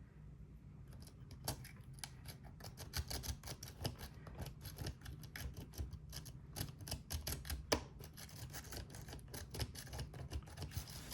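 Rapid, irregular metallic clicking and scraping of a rake pick worked in and out of a Bovii dimple lock, its pins clicking as they are raked. One sharper click stands out about three-quarters of the way through.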